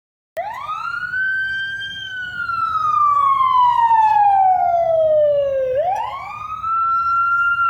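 Siren sound effect passed through a Doppler shifter to sound like a vehicle driving past. The wailing tone rises sharply, sinks slowly for about four seconds, then rises again near the end.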